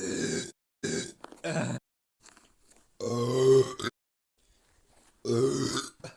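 A person burping repeatedly: three short burps in quick succession, then two longer, deep, drawn-out burps about three and five seconds in.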